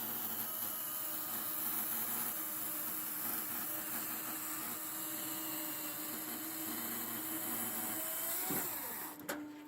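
Steady mechanical hum of an engine-driven machine running at constant speed, with a brief change in pitch near the end before the sound drops away.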